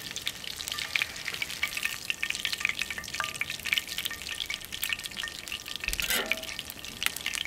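Hot frying oil in a cast-iron skillet sizzling and crackling with a dense stream of fast little pops, still bubbling after the breaded fish has come out.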